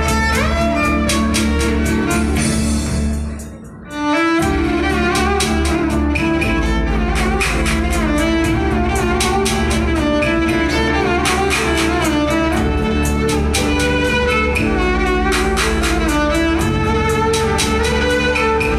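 Violin playing a melody live over keyboard accompaniment with a steady beat. The music briefly drops away a little over three seconds in, then comes back in with the violin and a fuller bass.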